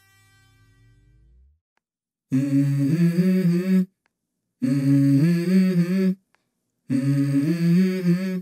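Music intro: a wordless vocal line in three short phrases, each stepping up in pitch, with brief silences between. A held tone fades out during the first second and a half.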